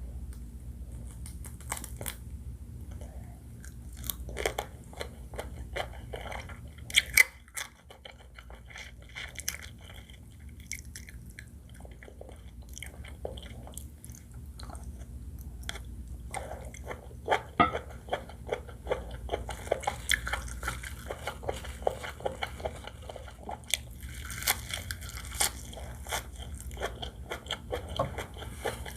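Close-miked eating: biting, crunching and chewing seafood fried rice with shrimp, crab and squid, with many sharp clicks and crackles, the loudest a few seconds in and around the middle.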